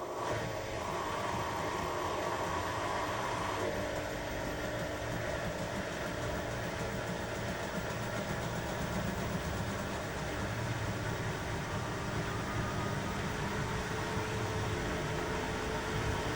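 Beko washing machine running its wash cycle: a steady mechanical hum and low rumble from the motor and turning drum.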